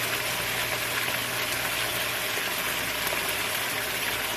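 Chicken pieces sizzling in hot oil in a pan on a high flame: a steady frying hiss, with a low steady hum underneath.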